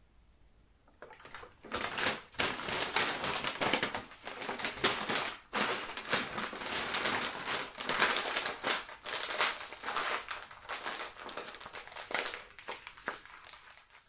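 Hard, stiff paper being handled and crumpled: dense rustling full of sharp clicks, starting about a second in, going on unevenly, and stopping abruptly at the end.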